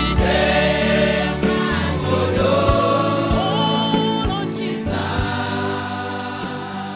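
Gospel music: a choir singing over instrumental backing, growing slightly quieter toward the end.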